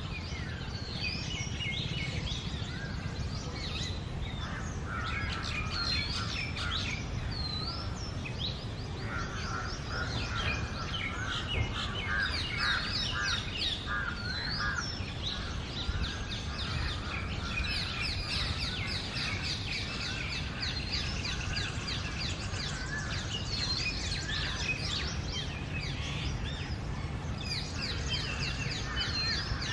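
Oriental magpie-robin singing: a varied, continuous run of sweeping whistles, rising and falling notes and rapid trills, over a steady low rumble.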